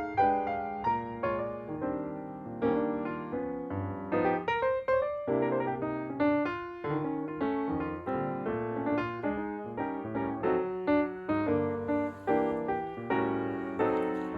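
Background piano music: a gentle, steady run of struck notes, each dying away after it is played.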